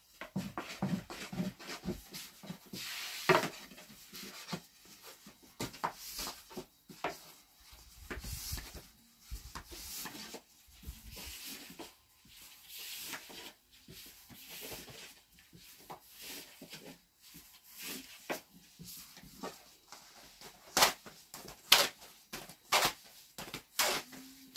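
Thin wooden rolling pin rubbing and knocking against a round wooden board as flatbread dough is rolled out, with scattered clacks. The sharpest and loudest clacks come in the last few seconds.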